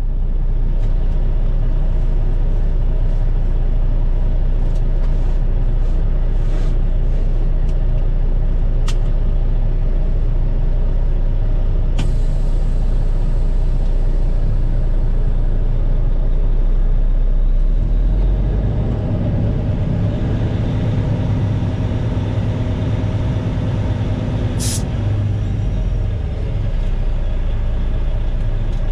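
Caterpillar C13 diesel of a Kenworth T800 dump truck heard from inside the cab, running steadily at idle. After about eighteen seconds the engine note changes and it pulls under load as the truck moves off. A short sharp hiss comes near the end.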